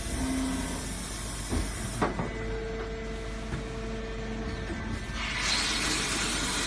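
Automatic sand molding machine running in a foundry: a steady mechanical hum with a held tone and a few clicks, then a louder hiss from about five seconds in.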